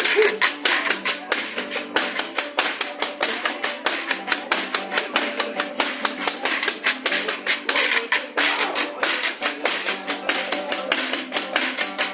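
Horse or donkey jawbone (quijada) played as percussion: a rapid, rhythmic run of sharp clicks and rattles from the loose teeth, with guitar-like music underneath.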